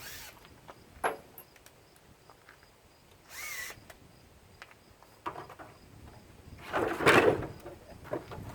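Intermittent clicks and knocks from tools and mower parts being handled during a teardown, with a brief squeak about three and a half seconds in and a louder clatter about seven seconds in.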